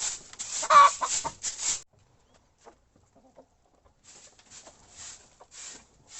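Chickens clucking, with one loud squawk just under a second in. After a short lull, a run of short scratchy noises comes about twice a second.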